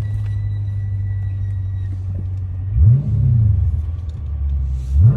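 2020 Dodge Scat Pack's 392 HEMI V8 exhaust with the mid mufflers deleted, running at a steady low rumble, then revved sharply twice: about three seconds in and again near the end, each time climbing fast and dropping back.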